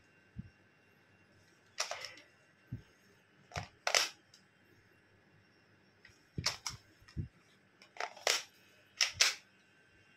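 Spring-powered Glock 18C replica gel-ball pistol being worked and fired: sharp plastic snaps, mostly in close pairs, about five times, with a few dull low knocks between.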